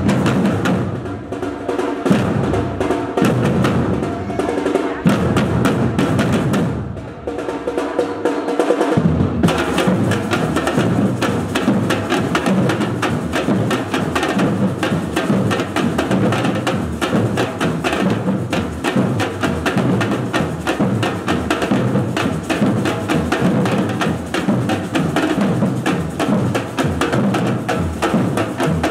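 Batucada drum group playing a samba rhythm on marching drums struck with sticks. For the first nine seconds or so the beat is sparser, with breaks, then the full group comes in with a dense, steady pattern.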